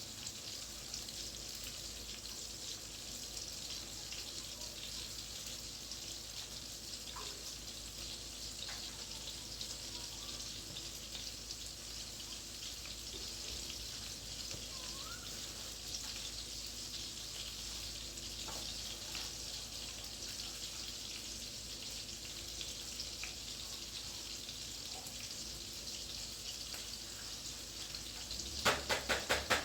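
Kebab kobideh meat sizzling and crackling as it cooks, a steady hiss with fine pops. Near the end, a fast, even run of louder knocks begins.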